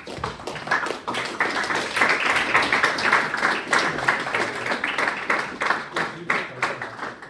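A small audience applauding: many hands clapping, building about a second in and fading away near the end.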